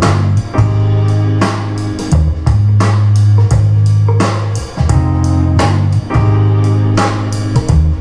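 Instrumental music with a steady drum beat and heavy bass, played back through a pair of small DIY two-way stereo speakers during a sound test.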